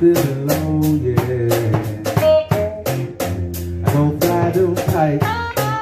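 A live blues jam on electric guitar and drum kit, the guitar playing bending lead lines over a steady beat of drum and cymbal hits.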